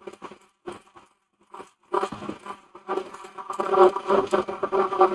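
Hand-held immersion (stick) blender blending banana and millet custard in a glass. It runs in several short pulses, then runs continuously from about two seconds in, its buzz rising and falling as it churns the thick mixture.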